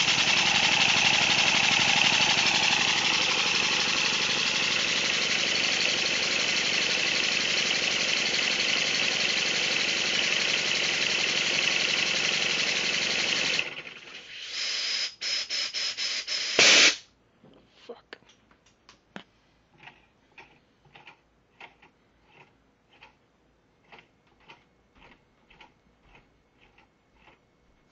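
Homemade model steam engine running fast on compressed air, a loud steady rush of hissing exhaust for about fourteen seconds. The air is then cut and it sputters in a few short bursts before stopping, about seventeen seconds in. Faint regular clicks follow, one or two a second, as the engine turns over slowly.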